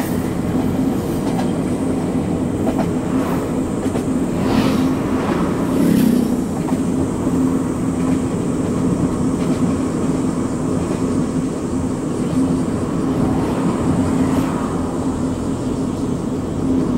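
Steady running noise of a JR West 221 series electric train moving alongside a car, a constant drone with a low hum and a few sharp clacks of wheels over rail joints.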